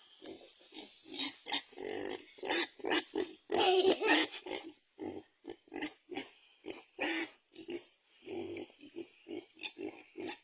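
Pigs grunting in a quick run of short calls, with a cluster of louder, longer, harsher calls about two to four seconds in.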